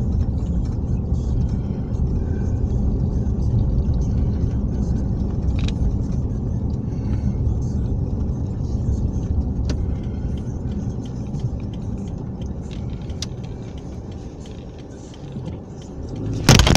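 Car driving slowly, heard from inside the cabin: a steady low engine and road rumble that dies down a few seconds before the end, then a sudden loud burst of noise right at the end.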